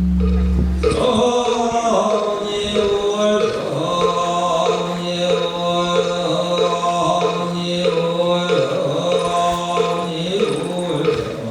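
Buddhist chanting: a repeated, rhythmic chant over a steady low drone. It starts just under a second in, where a loud deep hum cuts off.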